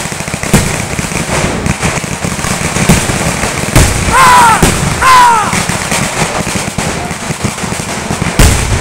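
Fireworks crackling and banging without a break, with a few sharper bangs standing out. About four and five seconds in come two loud tones that fall in pitch.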